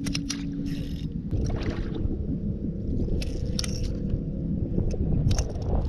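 Low rumbling handling noise with scattered irregular clicks and knocks and a faint steady hum, as a big fish is fought on rod and reel from a small boat.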